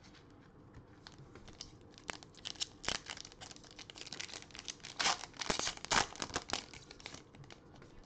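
Foil trading-card pack of Donruss Optic football cards being torn open and crinkled by hand: a run of crackling rustles that builds about two seconds in and is loudest around five to six seconds in.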